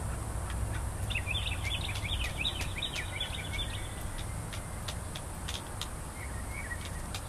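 A songbird sings a fast, jumbled twittering phrase starting about a second in and lasting nearly three seconds, with a short, softer phrase near the end. Underneath runs a steady low rumble, with scattered sharp ticks.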